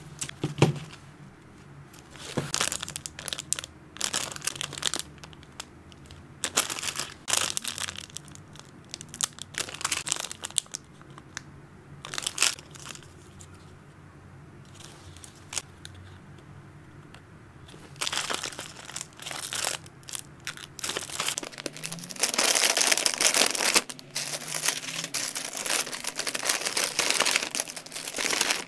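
Plastic snack packets crinkling as they are picked up and handled, in separate bursts with short quiet gaps. For the last several seconds the crinkling runs on almost continuously as a large white bag is handled.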